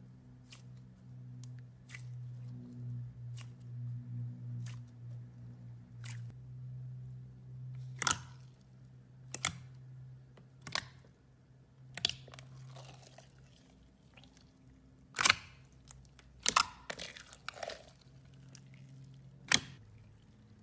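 Slime being pressed and stretched by hand, giving about eight sharp crisp pops and crackles from the middle on. A low steady hum underneath fades out about two-thirds of the way through.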